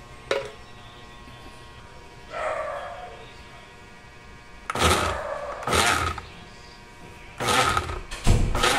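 Tough Mama electric blender pulsed four times in short bursts of about half a second each, starting about halfway through, chopping mango pieces for a shake. There is a sharp click just after the start.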